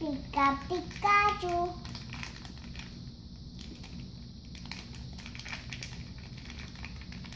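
A toddler's short sing-song vocalizing at the start, then faint plastic clicking and crinkling as she handles a plastic-wrapped stack of small Play-Doh cans.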